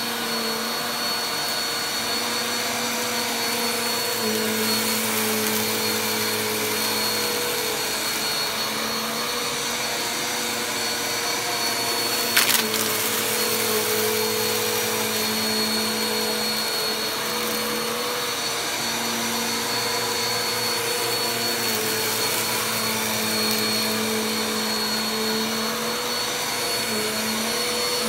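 Bagless upright vacuum cleaner running steadily on carpet, picking up fine dirt. Its motor hum shifts slightly in pitch as it is pushed back and forth, with a high whine on top. One brief sharp click about halfway through.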